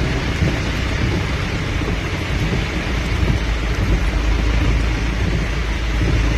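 Steady rain on a moving car, heard from inside the cabin, with tyres on the flooded road and a constant low rumble.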